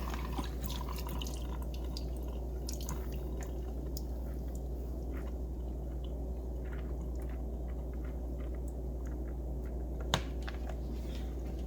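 Faint, scattered drips of water, likely from the freshly rinsed egg noodles draining, over a steady low hum. A single sharper click comes about ten seconds in.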